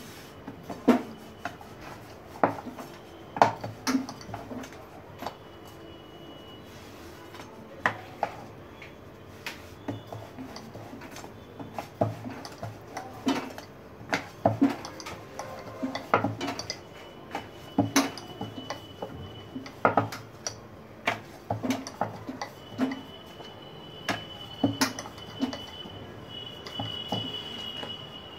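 Dough being rolled out on a round rolling board: irregular knocks and clacks of the board and rolling pin, some of them sharp and loud.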